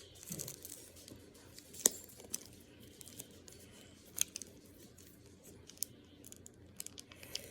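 Faint handling of packaging: light clicks and crinkles, with sharper clicks about two and four seconds in.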